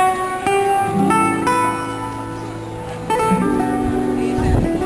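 Acoustic guitar playing a tango accompaniment: plucked chords and single notes over low bass notes, with fresh notes struck every half second or so and a pause near the middle. A brief low rumble near the end.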